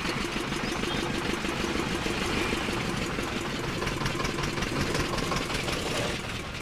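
A vehicle engine running steadily, with a fast, even beat of firing pulses.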